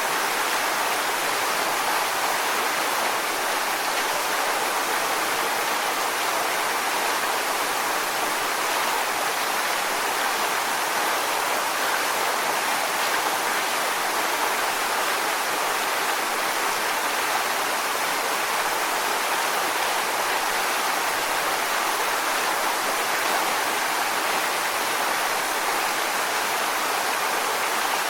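Waterfall: a steady rush of falling water, even and unchanging, with most of its weight in the middle and upper range and little low rumble.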